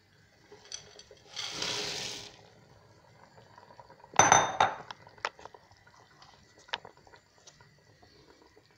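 Frozen green peas tipped from a glass bowl into a stainless-steel pot, a rattling rush lasting about a second, followed a couple of seconds later by one loud metallic clank against the pot that rings briefly, then a few light clinks.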